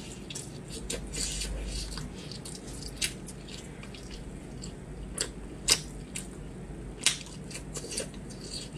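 Braised pork being torn apart by gloved hands: wet, sticky squelches with a scatter of sharp little clicks and snaps.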